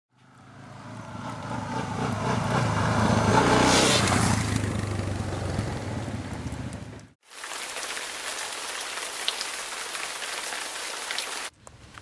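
An engine running with a rushing noise, swelling to its loudest about three to four seconds in and then fading. After a sudden cut about seven seconds in, rain falls steadily on a puddle.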